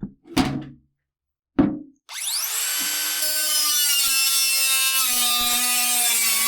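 Electric power tool starting about two seconds in, spinning up quickly and then running with a steady whine, likely working sheet metal for a new drawer stop. It is preceded by two short knocks.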